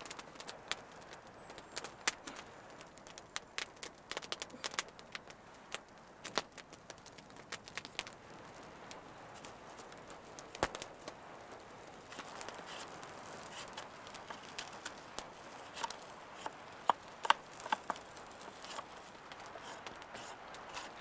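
A small wood campfire crackling, with irregular sharp pops and snaps.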